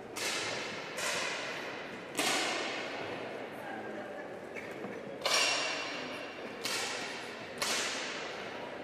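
10 m air pistols firing sighting shots: six sharp cracks at irregular intervals, each trailed by about a second of ringing hall reverberation.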